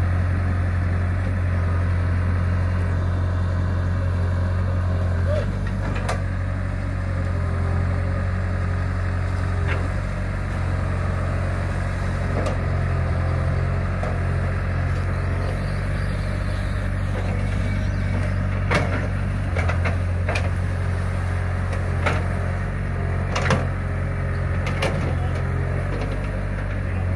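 Caterpillar hydraulic excavator's diesel engine running steadily while digging mud, its note dipping and recovering a few times with the load. Sharp knocks sound now and then, mostly in the second half.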